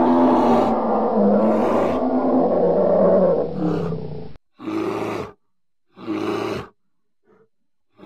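A deep animal roar, drawn out for about four seconds, then three short roars under a second each, every one cut off suddenly into silence.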